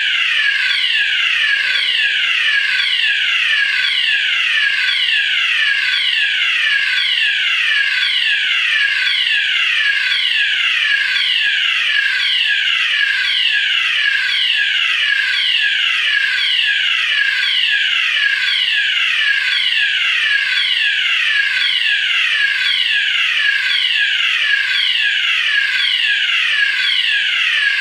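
Electronic alarm siren: a loud tone that sweeps down in pitch about once a second, repeating without a break at a steady level.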